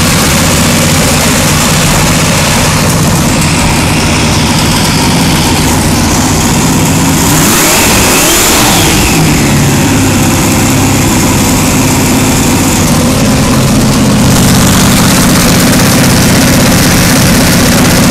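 Chevrolet small-block V8 fitted with twin turbochargers, running loud and steady on a first test run without boost, to check that every cylinder fires. About eight seconds in it is revved briefly, and a hiss follows for a few seconds.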